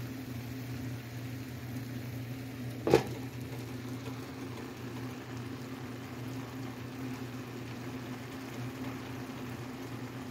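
Steady low hum of a kitchen vent fan over pans simmering on the stove, with a single sharp clink about three seconds in.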